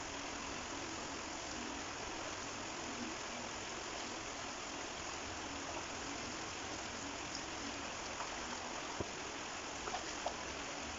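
Shallow stream flowing steadily, an even rushing of water, with a few light splashes near the end as bare feet wade through it.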